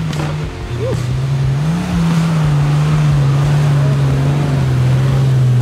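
Toyota Land Cruiser 80 series engine working hard under load as the truck pulls slowly through thick, soft sand. Its revs rise about two seconds in and then hold steady.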